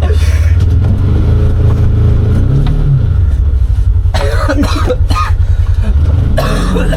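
Side-by-side UTV engine running in deep snow, revved up and back down twice, about halfway through and again near the end. Short bursts of a voice or cough sound between the revs.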